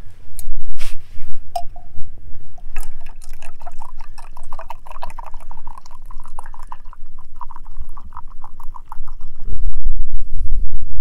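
Liquid poured into a cup or pot, a fluttering splash whose pitch rises a little as the vessel fills, after a few knocks at the start. Low wind rumble on the microphone grows loud near the end.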